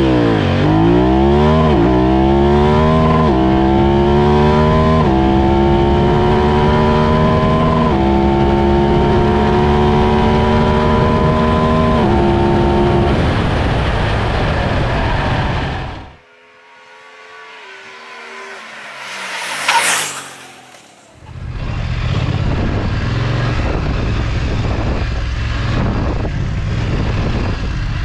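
BMW F900XR's 895 cc parallel-twin engine accelerating hard up through the gears, its pitch climbing and dropping back at each of about five upshifts, then holding steady. After a sudden cut it approaches and passes by about two-thirds of the way in, its pitch falling as it goes, then carries on running steadily.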